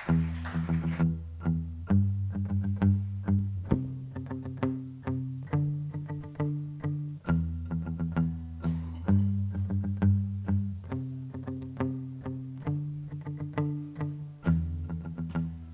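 Steel-string acoustic guitar played solo: picked notes in a repeating arpeggio over ringing bass notes, the chord changing every couple of seconds.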